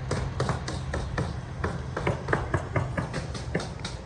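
Hammer blows, several a second and irregular, as if more than one hammer is going at once, over a steady low rumble.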